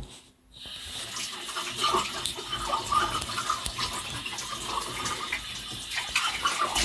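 A kitchen tap running into a sink, with dishes and cutlery clinking. The water starts about half a second in.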